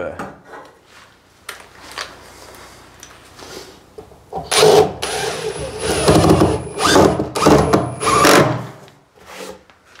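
Cordless drill-driver running in four or five short bursts in the second half, driving screws into an OSB pattress and timber studs. A few light knocks come before it.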